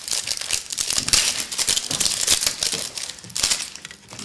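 Foil trading-card pack wrapper crinkling as it is handled and opened, a dense run of crackles.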